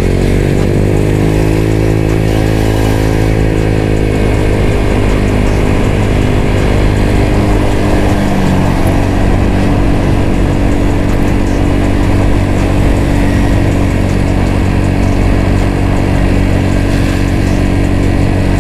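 Automatic CVT scooter fitted with an aftermarket DSM exhaust (a copy of a CMS pipe), ridden at an easy cruise. The engine note rises a little at first, drops about eight seconds in, then holds steady.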